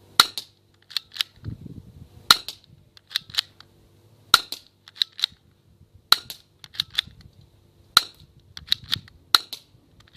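BB gun firing one shot about every two seconds, each a sharp crack, with quieter clicks in between.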